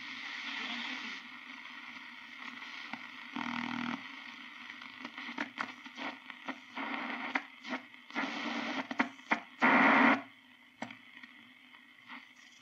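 Grundig 3160 valve radio tuned across its shortwave band, playing through its loudspeaker: hiss and static with crackles, short blips and signals that swell in and drop away as the dial moves. The loudest burst comes about ten seconds in.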